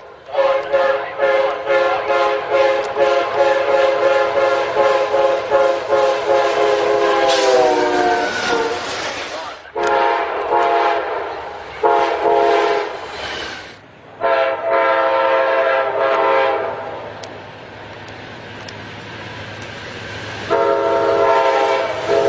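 Diesel locomotive's multi-chime air horn sounding a chord in separate blasts: a long blast whose pitch falls near its end, then a long, a short and a long, the pattern of the grade-crossing warning signal, with another blast starting near the end. A low rumble of the train runs between the blasts.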